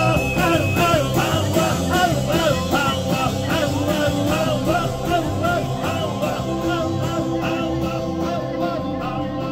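Music with a steady beat and a repeating melody line, growing slightly quieter toward the end.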